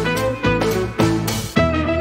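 Instrumental background music with a steady beat, made of pitched chords that sound a fresh note roughly every half second.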